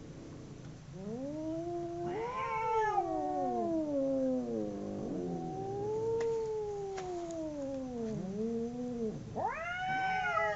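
Two cats caterwauling at each other in a fight standoff: long, drawn-out yowls that rise and fall slowly in pitch, one voice overlapping the other at times.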